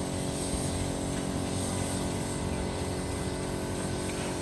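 A motor running steadily, a constant drone with an even hum that does not change in pitch or level.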